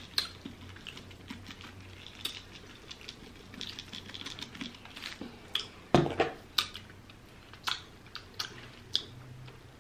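Lemon pepper seasoning shaken from a shaker bottle onto a rotisserie chicken: scattered light ticks and patter of the shaker and falling granules. A louder knock comes about six seconds in, and a few wet mouth clicks follow near the end as fingers are licked.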